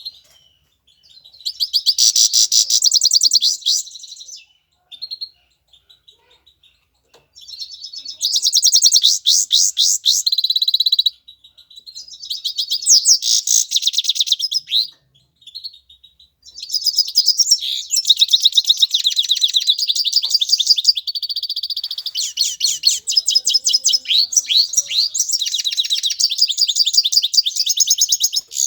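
European goldfinch singing a rapid, tinkling twittering song in several long bursts, loud and close, the longest running on from about sixteen seconds in.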